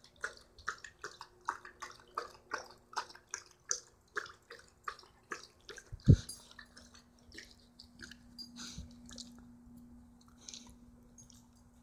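A dog panting hard and mouthing during rough play, with wet, rhythmic breaths about twice a second for the first six seconds. About six seconds in there is a single loud thump, and the mouth sounds then go on more softly and unevenly.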